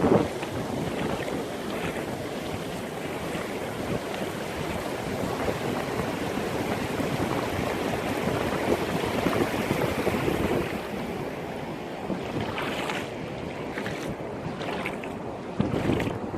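Sea waves washing onto the shore, a steady rushing hiss, with a few short sharper splashes in the last few seconds.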